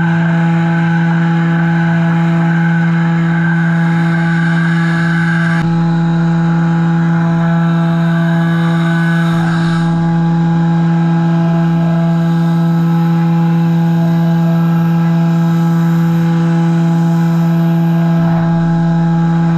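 CNC milling machine spindle running with an end mill cutting Delrin plastic under flood coolant: a steady pitched hum with overtones over the hiss of coolant and cutting.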